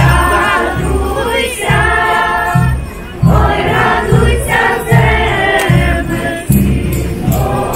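Group of voices singing a Christmas carol together over a drum beating about twice a second.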